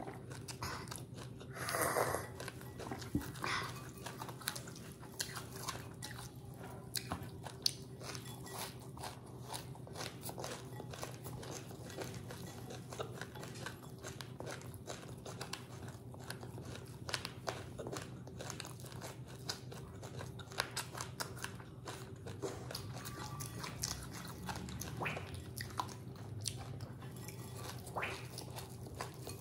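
Close-up crunching and chewing of puffed rice mixed with grated coconut, a dense run of small crisp crackles with a few louder bites near the start.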